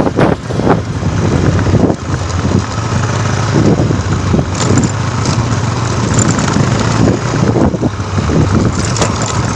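Motor vehicle engine running steadily, with wind noise over it.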